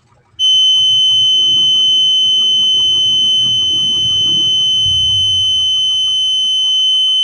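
Buzzer of a homemade MQ2 smoke detector circuit going off as its alarm, a single steady high-pitched tone that starts about half a second in and holds without a break: the circuit has sensed smoke and is working.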